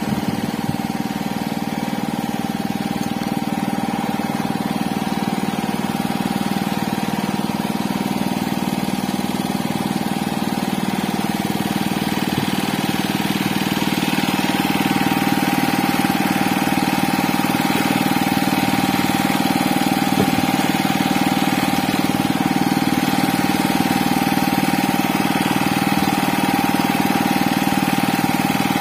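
Steady drone of an engine running aboard the fishing boat, growing a little louder about halfway through.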